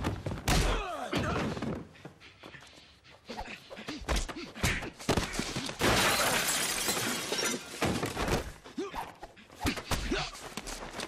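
Close-quarters fistfight: a fast run of punches, thuds and scuffling, with men grunting and breathing hard. Glass shatters about halfway through and rings on for a couple of seconds.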